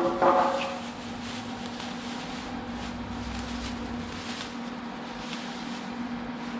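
A brief squeaky scrape at the very start, then a steady low electrical hum with light background noise.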